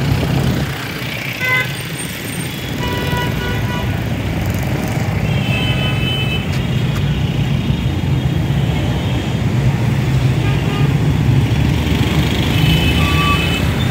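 Busy street traffic: motorcycle and car engines running close by, with short vehicle horn toots about three seconds in, around six seconds in, and again near the end.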